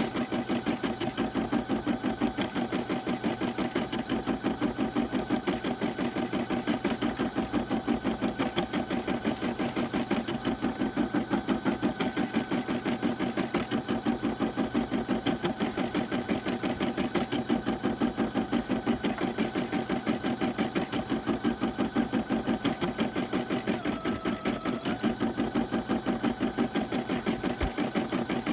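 Brother home embroidery machine stitching out a design: a steady, unbroken run of rapid needle strokes over a constant motor tone.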